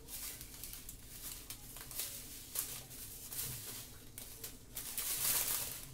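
Small plastic bags of diamond-painting drills rustling and crinkling as they are handled and leafed through, in uneven bursts, busiest about five seconds in.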